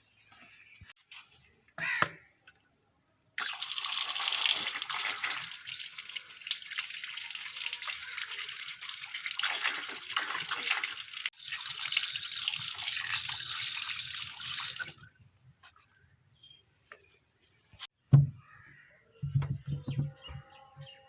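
Water running and splashing, as from a tap or a poured stream, for about twelve seconds before it stops. Later comes a sharp knock followed by a few dull thuds.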